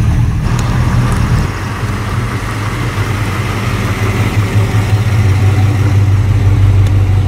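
Classic Mopar car engines running as the cars drive slowly past at low speed: first a Dodge Challenger, then, after a cut about a second and a half in, a mid-1960s Plymouth convertible. The engine sound builds, loudest as the Plymouth passes close near the end.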